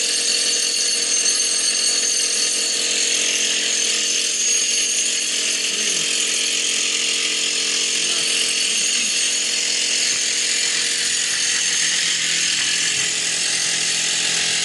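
Strong wind whistling steadily: a loud high hiss with several held whistling tones that barely change.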